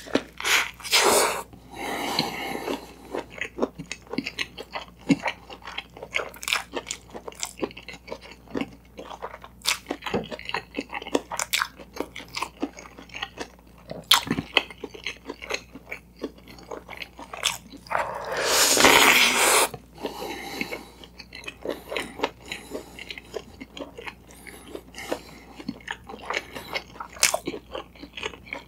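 Close-miked chewing of a toasted sandwich with sausages and shredded cabbage: steady wet chewing with many small crackles and clicks, and a bite into the toast about a second in. About two-thirds of the way through comes a louder, noisier sound lasting over a second.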